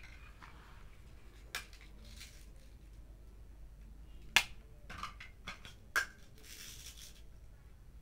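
Hard plastic toy food pieces clicking and tapping as they are picked up and set down, with brief soft rustling between. There are a handful of separate sharp clicks, the loudest just past halfway.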